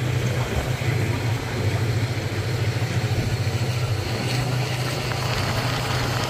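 Steady low drone of a diesel locomotive engine with a fast, even pulsing beat, heard from inside a passenger carriage of the train.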